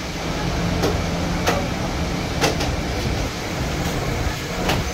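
Steady low rumble of busy street traffic, with a few sharp clicks scattered through it.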